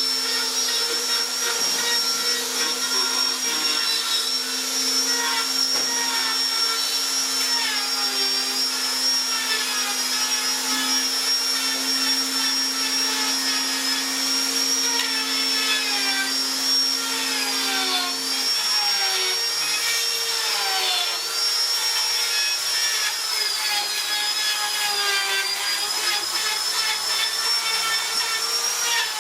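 Electric power tool motor running at a steady speed, then spinning down about two-thirds of the way through. Other machine noise with wavering pitch keeps running.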